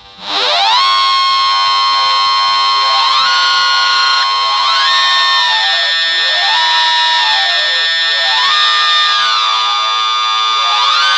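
Synthesizer tones from a phone pegboard synth app: several high tones held together, sliding up and down to new pitches every couple of seconds, like an alarm.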